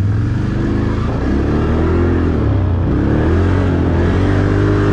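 Can-Am 570 ATV's V-twin engine running as the quad is ridden over dirt, its pitch dipping and rising a few times as the throttle is eased off and opened again.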